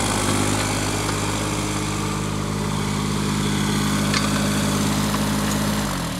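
JCB micro mini excavator's small engine running steadily at working speed while the machine is operated. Near the end its pitch falls sharply as the engine slows down.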